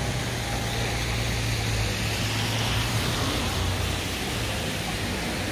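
Street traffic on a wet road: a vehicle's tyres on wet asphalt give a wash of noise that swells about halfway through and eases off, over a low steady engine hum.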